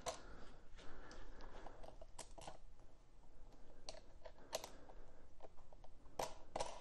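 Irregular small clicks and taps of metal hardware being handled, as 1/4-20 bolts, lock washers and knobs are fitted by hand. The clicks come in clusters, with the busiest near the end.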